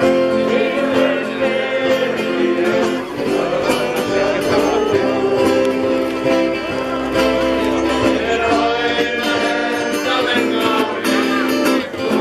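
Music: acoustic guitar with singing, a steady melody of held notes.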